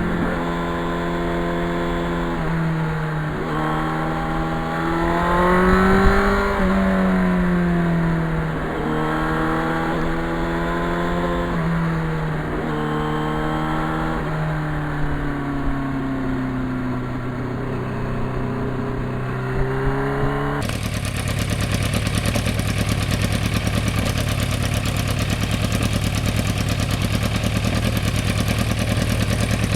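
Yamaha FZR's inline-four motorcycle engine running under way, its pitch rising and falling with throttle and gear changes. About two-thirds of the way through, the sound switches abruptly to a steadier, noisier engine drone with a hiss over it.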